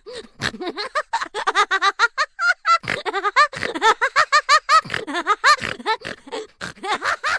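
Rapid high-pitched squeaky chattering, a comic voice effect: a run of short squeaks, about five a second, each rising and falling in pitch.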